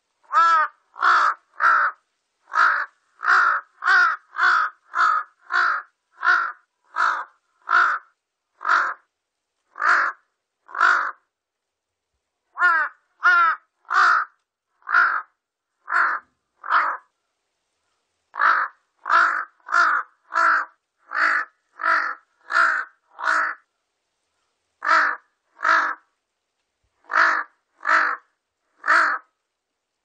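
Large-billed crow calling: a long series of short harsh caws, about one to two a second, in runs broken by brief pauses.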